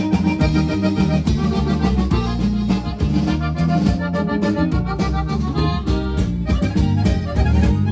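A live band playing: a button accordion carries the melody over drums, guitar and a deep bass line, with a steady beat.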